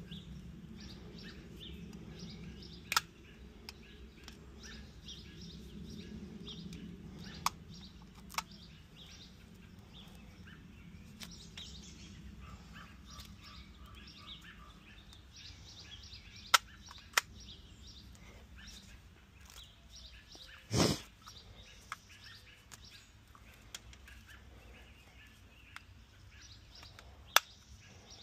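Hand wire cutters snipping copper wire salvaged from a TV: a handful of sharp single clicks spread out, with one heavier thump about three-quarters of the way through. Birds chirp faintly in the background.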